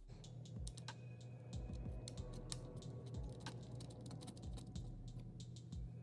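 Faint, irregular clicks and taps of small computer parts being handled on a motherboard resting on its plastic anti-static bag, over a low steady hum.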